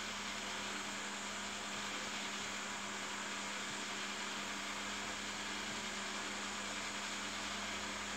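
Steady hiss with an even low hum underneath, unchanging throughout: background room noise with no distinct events.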